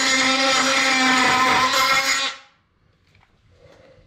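Cordless oscillating multi-tool running steadily while cutting a sheet-steel engine windage tray: a steady tone over a high hiss. It is switched off about two seconds in and dies away, leaving only a few faint knocks.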